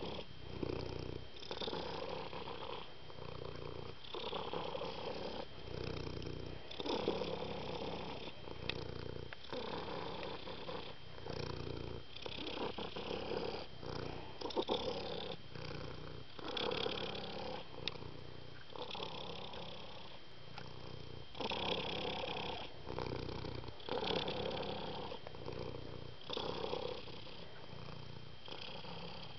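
A domestic cat purring close up, a steady rumble that swells and eases with each breath in and out, about once a second.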